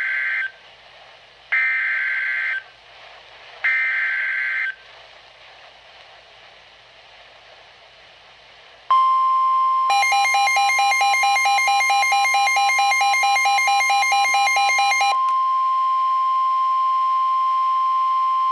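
NOAA Weather Radio emergency alert: three short bursts of screeching SAME digital header data. After a few seconds of hiss comes the steady 1050 Hz warning alarm tone, which signals that a warning follows. For about five seconds partway through the tone, a rapidly pulsing electronic beep is layered over it.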